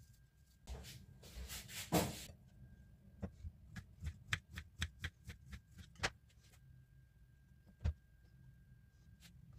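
Kitchen knife slicing a peeled kiwi on a plastic cutting board: a run of light knocks, about three a second, as the blade goes through and meets the board. Handling rustles come before the cutting, and a single knock near the end.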